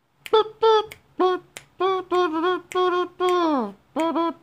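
A high voice singing an unaccompanied tune in short, separate held notes, with a long downward slide in pitch near the end.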